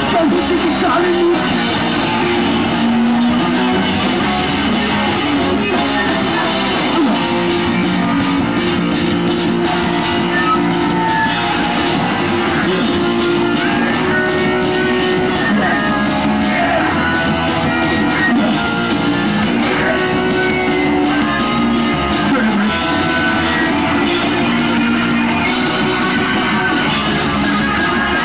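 Hardcore punk band playing live: electric guitar, bass and drum kit, loud and unbroken throughout.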